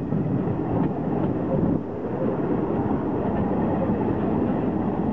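Passenger train running along the track, heard from a coach: a steady rolling rumble of wheels on rails.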